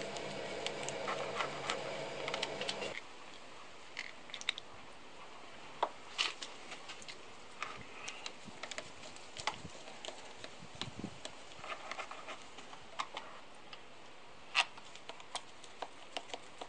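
Scattered small metallic clicks and taps of bolts being handled and started by hand into the outboard's powerhead. A steady hum cuts off about three seconds in.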